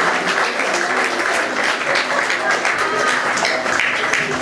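Audience applauding, with play-off music over it; the applause dies away just at the end.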